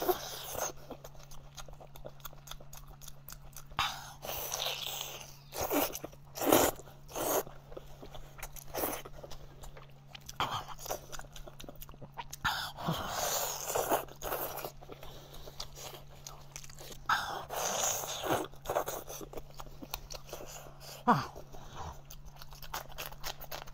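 Close-miked mukbang eating of braised goat leg: wet biting and chewing with sharp lip smacks and clicks, and several longer slurping bursts as meat and marrow are sucked from the bone. A faint steady low hum sits underneath.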